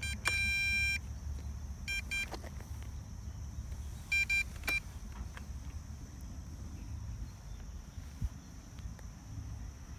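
Electronic beeps from a GPS drone's radio transmitter as it powers up and pairs with the drone. There is one long beep, then a quick run of short beeps about two seconds in and another about four seconds in, over a steady low rumble.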